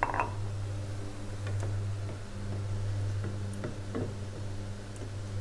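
A spatula knocking and ticking against a stainless steel saucepan while a chilli paste is stirred: one sharp knock at the start, then a few lighter ticks. A steady low hum runs underneath.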